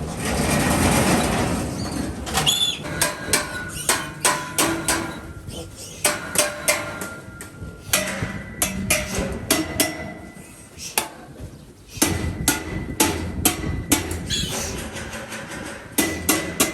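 Repeated sharp knocks and clatters at an uneven pace, roughly one or two a second, after a short noisy rush in the first two seconds.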